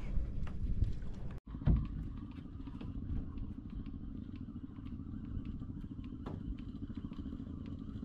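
Small wooden fishing boat's engine running steadily: a low, even engine note with a faint regular ticking over it. A brief break about one and a half seconds in is followed by a single thump.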